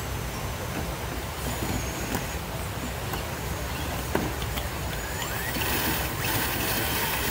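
Radio-controlled scale rock crawler's electric motor and gears whining as it creeps over a rock ledge, growing louder in the last couple of seconds. One sharp knock about four seconds in.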